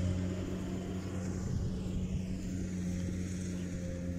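Rice combine harvester engine running steadily as it reaps, heard as an even low drone.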